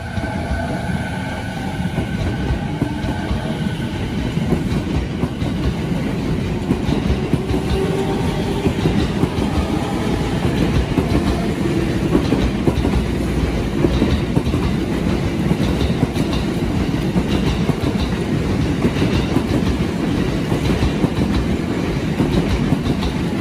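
JR East E217-series electric train pulling out along the platform and gathering speed. Its motor whine is heard in the first few seconds, then the wheels clatter over the rail joints as the cars go by.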